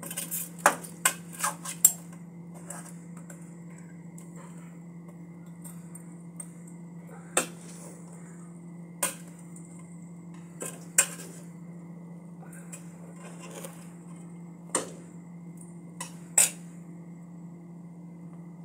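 A utensil knocking and clinking against a large aluminium pan as rice noodles and vegetables are tossed and mixed: a quick run of clinks in the first two seconds, then single knocks every second or two. A steady low hum runs underneath.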